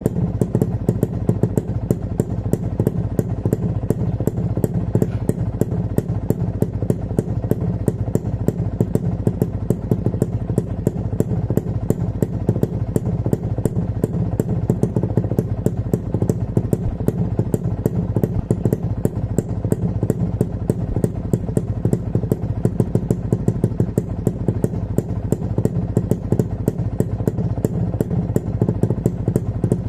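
2001 Kawasaki motorcycle engine idling steadily, warm after a ride, with an even exhaust beat that does not change.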